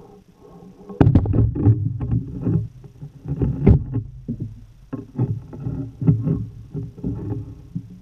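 Underwater knocking and low rumbling that start suddenly about a second in and go on in irregular clusters, with the loudest knock a little before the midpoint.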